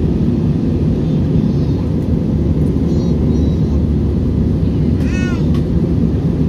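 Airliner cabin noise in cruise flight: a steady, loud low rumble of engines and airflow. About five seconds in, a short high-pitched cry rises and falls over it.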